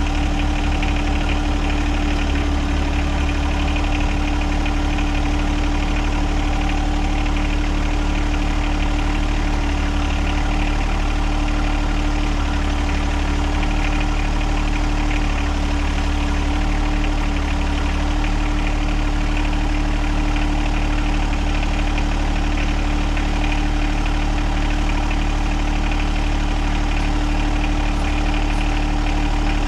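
John Deere 1025R compact tractor's three-cylinder diesel engine running steadily, its deep low end swelling and easing now and then.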